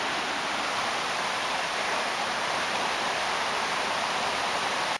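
Steady rushing of flowing floodwater, an even hiss with no change.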